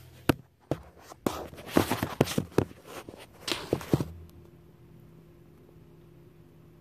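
Handling noise of a phone being worked into a wall cavity: irregular rubbing, scraping and sharp knocks against the wall materials for about four seconds. After that, only a faint steady low hum.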